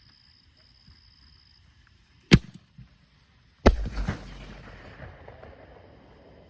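Reloadable fireworks mortar shell fired. A sharp thump as it launches from the tube about two seconds in, then about a second and a half later the shell bursts with a loud bang that echoes and fades away.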